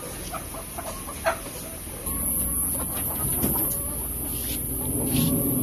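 Dekalb Brown laying hens clucking in short scattered calls, with one sharp, loud sound about a second in. The background noise grows louder about two seconds in.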